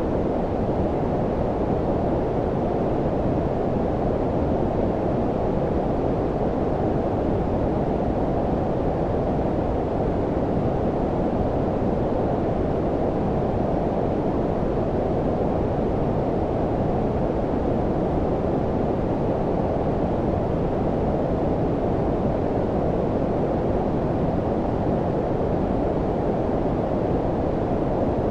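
Steady low-pitched synthetic noise, brown-noise-like, its rumble and hiss mostly below about 1 kHz with the treble rolled off, unchanging throughout.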